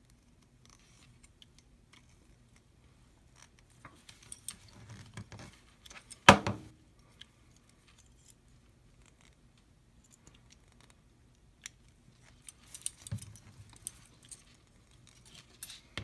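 Small metal clicks and rattles of crimp sleeves, a swivel and steel fishing cable being handled, with one sharp loud click about six seconds in as the crimping tool closes on a crimp sleeve.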